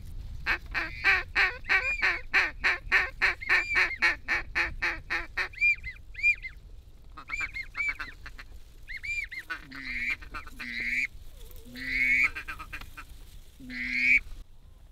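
Hunters' duck calls blown to draw in passing wigeon. The call starts with a fast run of about four or five notes a second, follows with several separate whistled notes, and ends with a few longer raspy quacks.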